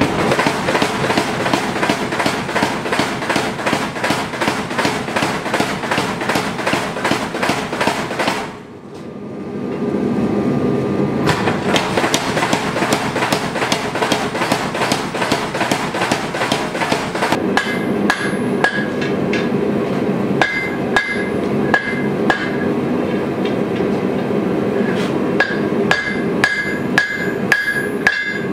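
Power hammer pounding a hot sword blade in a rapid string of blows, with a brief pause about a third of the way in. It then gives way to a hand hammer striking the blade on an anvil, slower separate blows, each with a ringing note.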